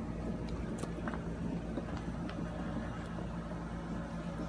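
Steady low mechanical hum with a few faint, scattered clicks.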